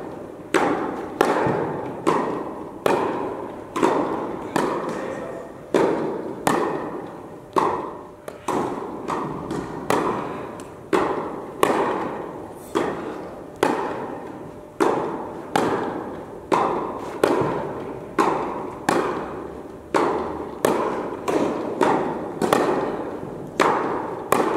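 Tennis rally: a tennis ball struck back and forth by rackets and bouncing on the court, a steady run of sharp pops one to two a second, each trailing off in a long echo of the indoor tennis hall.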